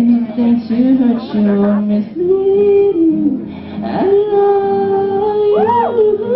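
Voices singing a boyband song live, at times in two-part harmony. About four seconds in they settle onto a long held note, and near the end a higher voice sweeps up and down over it.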